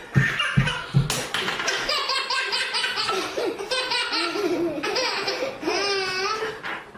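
A baby laughing hard: long, almost unbroken runs of quick, high-pitched laughs, with wavering squeals in the second half.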